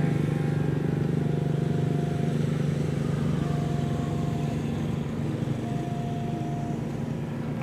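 A level-crossing warning signal sounding, a single steady tone of about a second repeating every two seconds or so, as a train approaches. Under it a loud, low, steady engine hum that slowly fades.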